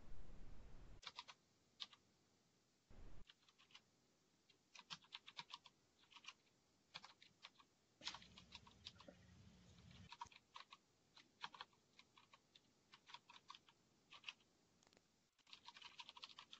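Faint typing on a computer keyboard: irregular runs of key clicks with short pauses between them.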